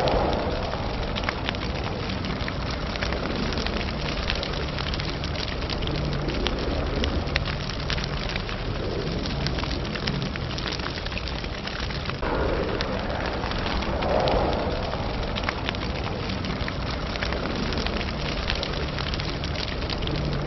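Fire sound effect: a steady crackle of many small pops over a low rumble, with a brief swell about twelve seconds in.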